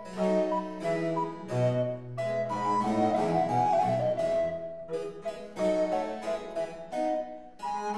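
Background classical-style music led by a harpsichord, a run of quick plucked notes.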